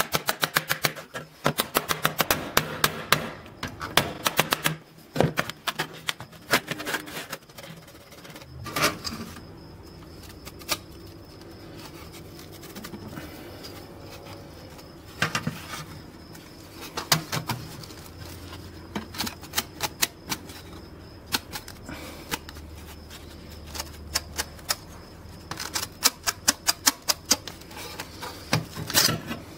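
Rapid metallic clicking and tapping as a rusty steel saw blade is handled against a steel plate. The clicking comes in quick runs at the start and again near the end, with scattered single taps in between.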